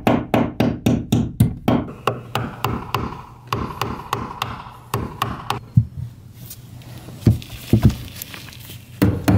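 Hammer driving metal cable staples over NM electrical cable into wooden attic framing. It opens with a fast run of taps, about five a second, for the first two seconds, then slows to spaced strikes, with a few single knocks later on.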